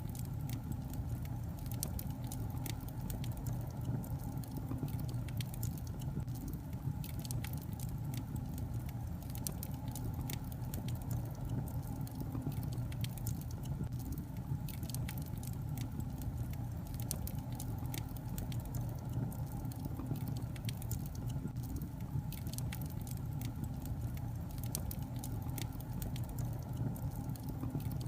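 Wood fire burning in a fireplace: a steady low rumble of the flames with frequent irregular crackles and pops from the logs.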